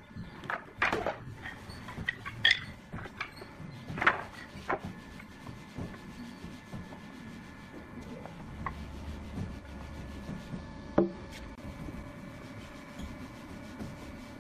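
Hand work on wood: pieces of hardwood rubbing and scraping against each other, broken by a handful of sharp knocks, the loudest about a second in, near 4 seconds and near 11 seconds.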